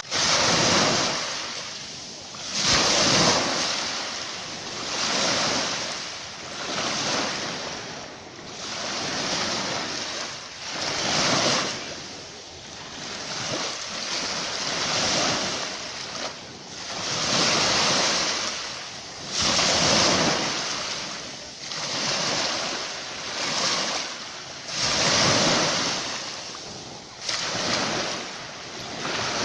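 Ocean surf washing onto a beach, the waves swelling and falling away every two to three seconds.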